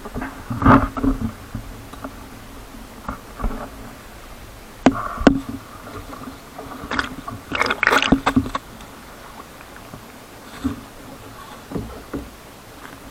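Waves slapping and splashing against a sailing kayak's hull as it moves through choppy water, with irregular sharp knocks over a steady muffled rush.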